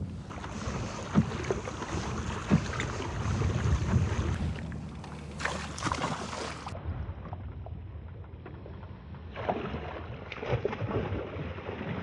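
A kayak on the water: water noise and wind on the microphone, with scattered short knocks.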